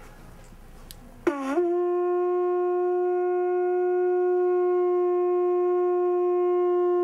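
Conch shell trumpet blown in one long note. It comes in about a second in with a quick upward scoop in pitch, then holds a single steady tone.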